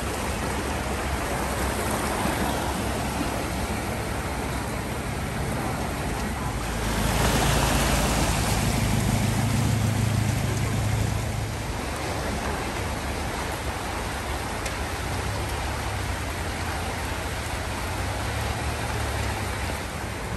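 Floodwater washing and sloshing across a flooded street, with a steady low hum of vehicle engines running. About seven seconds in, a pickup truck passes close through the water, louder for some four seconds before fading back to the steady wash.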